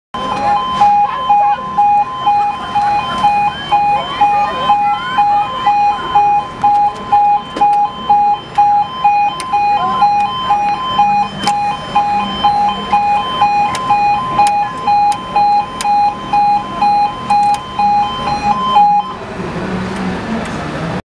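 Level crossing warning alarm sounding while the barriers come down, a loud two-tone alarm alternating steadily between two pitches. It stops shortly before the end, leaving quieter background noise.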